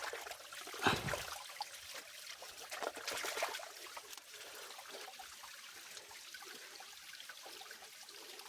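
Water trickling steadily, as in a small stream. There is a sharper, louder noise about a second in and a brief stretch of louder sloshing or rustling around three seconds.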